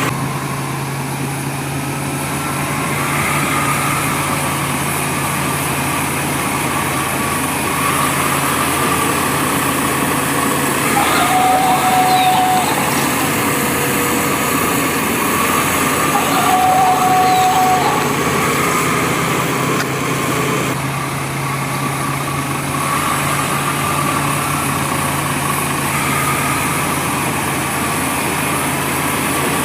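Small motors and gears of toy construction vehicles whirring steadily, with two short steady tones, each about a second and a half long, starting about 11 and 16 seconds in.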